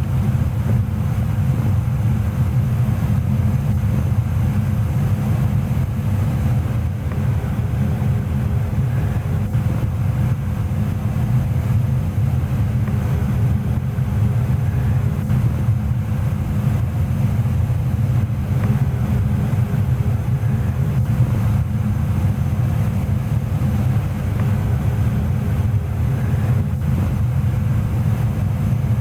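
Goodman GMNT080-4 gas furnace running steadily: a constant low rumble of its burners and fans, with a faint steady hum above it.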